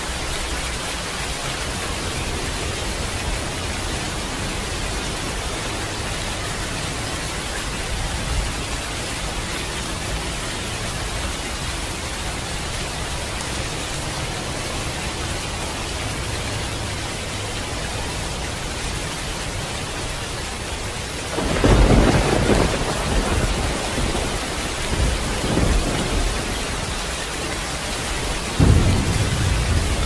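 Steady rain falling. About two-thirds of the way in, thunder rolls in with a loud rumble, fades into smaller rumbles, then gives a sharp, loud clap near the end.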